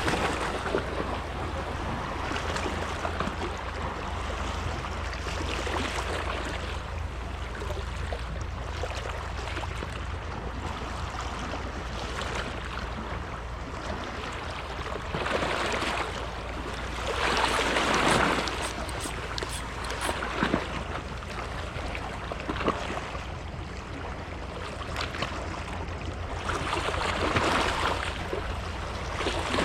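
Water rushing and splashing over a steady low rumble, the rush swelling louder about halfway through and again near the end.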